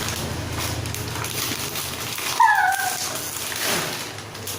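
A pet animal's short, high cry, falling in pitch, about halfway through, over a low steady hum.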